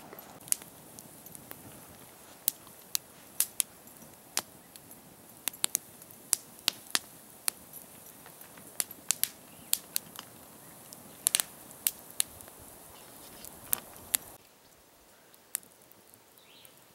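Wood campfire crackling, with sharp irregular pops about twice a second. Near the end the crackling drops away to a quieter background with only an occasional pop.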